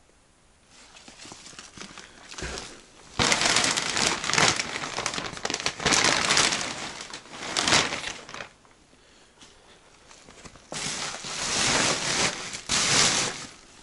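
Crunching and rustling from someone moving about, in two long bouts: one starting about three seconds in and lasting some five seconds, another near the end.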